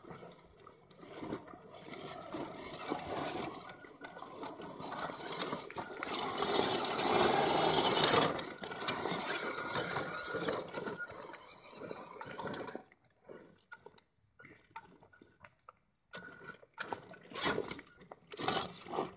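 Electric 1/10-scale RC truck driving over wet creek stones, its tyres crunching on the rocks and splashing through shallow water, loudest about eight seconds in. A thin high whine runs with it and stops about thirteen seconds in, after which only scattered crunches and clicks remain.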